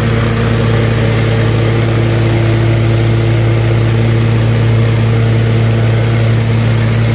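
Stand-on zero-turn mower's engine running steadily at a constant speed while mowing grass: an even, unbroken hum.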